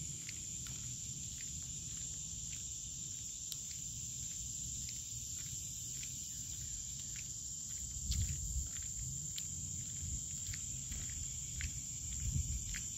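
Steady high-pitched drone of insects in woodland, with scattered short clicks. There are a few low thumps about eight and twelve seconds in.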